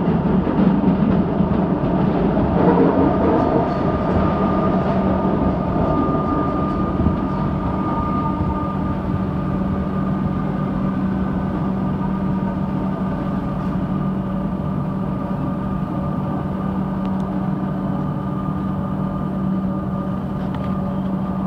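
Electric suburban train heard from inside while running, with a continuous rumble of wheels on the track and a steady electric hum held at one pitch. The rumble is a little louder and rougher in the first few seconds, then settles.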